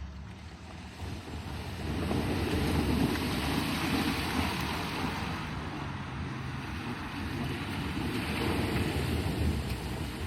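Jeep Grand Cherokee EcoDiesel's 3.0-litre V6 turbodiesel running with a broad rush of wind and road noise over a low engine hum. The rush swells about two seconds in, eases off in the middle and swells again near the end.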